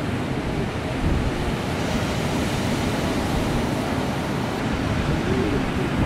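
Strong wind buffeting the microphone over ocean surf breaking on the beach: a steady, rushing noise, heaviest in the low rumble.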